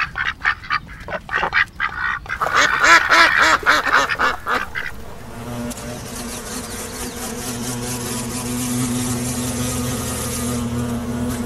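Ducks quacking in a quick run of calls, then a louder, longer stretch of quacking. About five seconds in, the calls stop and a steady outdoor background noise with a low hum takes over.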